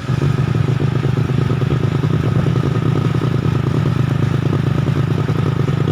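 Small motorcycle engine running steadily while riding along, with a rapid even pulsing of its exhaust.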